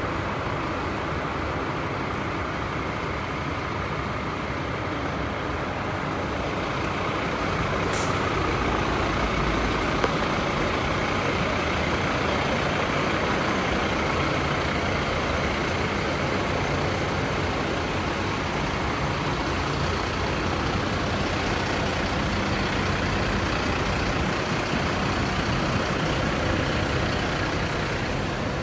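Parked fire trucks' diesel engines running steadily, with a short sharp click about eight seconds in.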